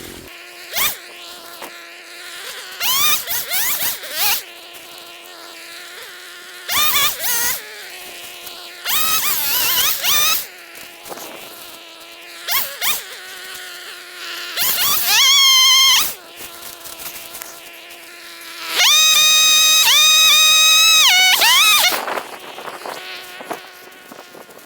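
Chainsaw idling between repeated bursts of throttle: several short revs that rise in pitch, then one long full-throttle run of about three seconds near the end while cutting tree limbs.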